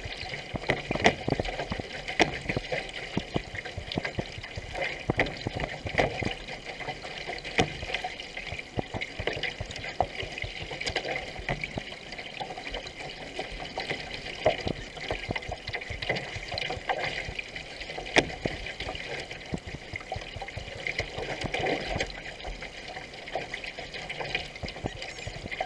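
Paddling a racing canoe at speed: water splashing from the paddle strokes and rushing along the hull, with frequent sharp splashes and drips close by.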